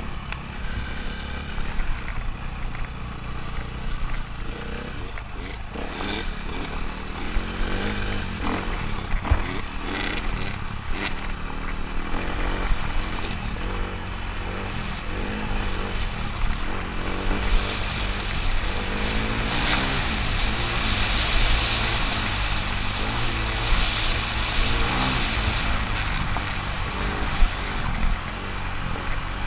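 Dirt bike engine running under way, its pitch rising and falling repeatedly as the throttle opens and closes, heard from a helmet-mounted camera, with wind rumbling on the microphone.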